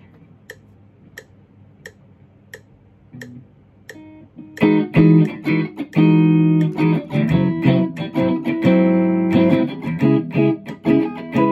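Steady ticking, about three ticks every two seconds, then about four and a half seconds in a Fender Stratocaster electric guitar comes in, played as ringing chords and single notes.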